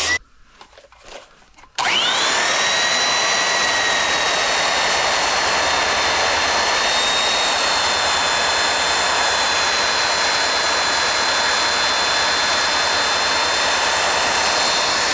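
Handheld belt sander starting up about two seconds in, after a brief hush, and running steadily with a high motor whine as its belt grinds a steel drum mulcher tooth.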